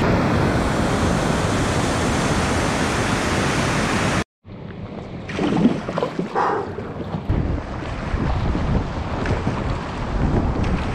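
Steady roar of a big whitewater rapid. About four seconds in it cuts off abruptly, and a kayak's camera takes over: water splashing and lapping around the hull and paddle strokes, with wind buffeting the microphone.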